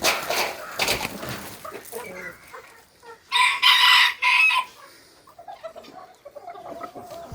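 A rooster crows once about halfway through, one call of about a second and a half in three parts, with softer clucking from chickens around it.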